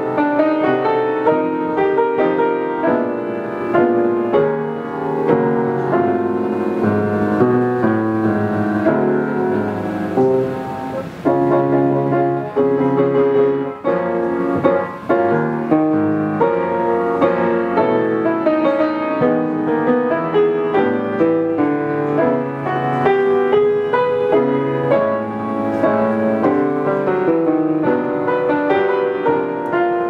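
Solo piano piece played on a 19th-century Röder grand piano: a steady, unbroken flow of melody and chords.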